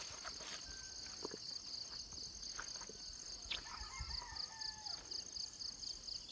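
A distant rooster crows once, about four seconds in, over a steady background of insects trilling with a fast pulse.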